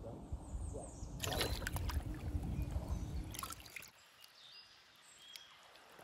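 Shallow creek water splashing and sloshing as a gutted rainbow trout is rinsed by hand, with sharp clicks and splashes through the middle, then a much quieter stretch near the end.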